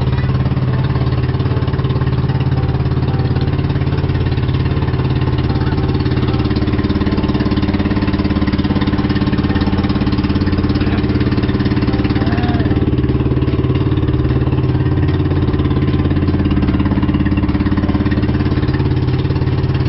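Pumpboat engine running steadily under way, loud and unchanging in pitch.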